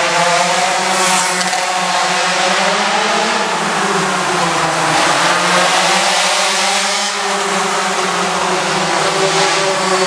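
Several pocket bike (minimoto) engines racing together, their overlapping pitches rising and falling as the riders open and close the throttle.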